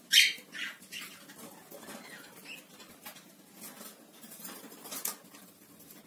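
Cockatiel giving a short, sharp call, then a quieter second call, followed by soft scratching and tapping sounds.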